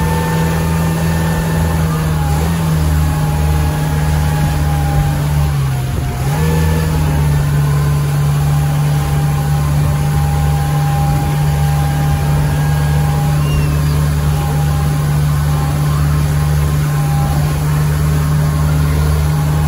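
Motorboat engine running steadily at speed over the rush of its churning wake. About six seconds in, its pitch dips briefly, then picks back up.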